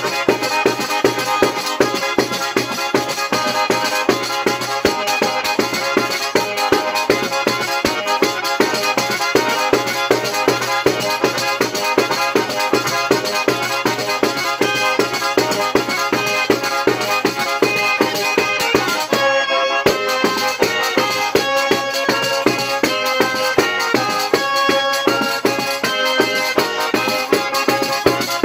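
Calabrian tarantella played on an organetto (diatonic button accordion) over a tamburello frame drum with jingles keeping a steady, driving beat. There is a brief break in the playing about two-thirds of the way through.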